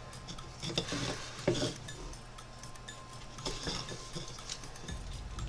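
Carving knife cutting into a wooden spoon blank by hand: short slicing and scraping strokes, one cluster about a second in and another about three and a half seconds in, with small ticks between.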